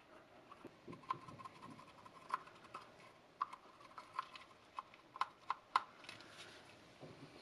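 Faint, irregular small clicks and taps from a cotton swab dabbing paste onto the plastic teeth of a dental model and gloved hands handling the model, with a soft rubbing sound about six seconds in.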